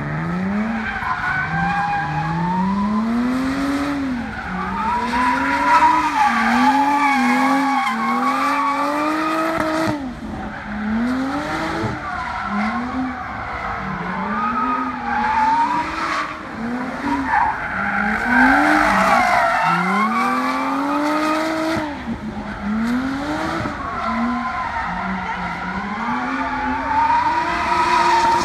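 Jaguar F-Type engine revving up and falling back over and over, about once every two seconds, as the car drifts on the throttle, with tyres squealing throughout as they spin and smoke.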